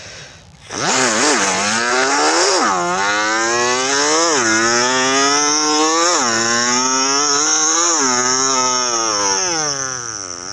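A young man's vocal imitation of a Yamaha R15 motorcycle: a continuous buzzing engine note that starts about a second in. Its pitch blips and drops roughly every two seconds and climbs again between blips, like an engine revving up through the gears. Near the end it winds down.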